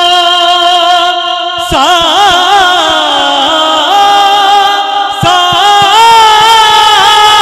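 A single amplified voice sings a devotional verse with no instruments. It holds a long steady note, then from about two seconds in slides between pitches with wide vibrato, and starts a new phrase near the five-second mark.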